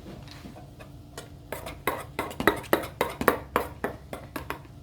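Spoon stirring a thick slime mixture in a bowl, knocking and clinking against the bowl in quick irregular strokes, about three or four a second, starting about a second and a half in.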